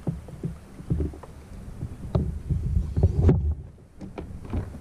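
Irregular low thumps and knocks, with a few sharper clicks, of fishing gear being handled in a kayak as a landing net is put away and a rod taken up.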